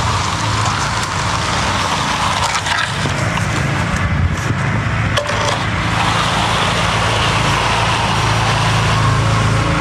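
An engine running steadily at a constant pace, with some scraping and knocking about three to six seconds in.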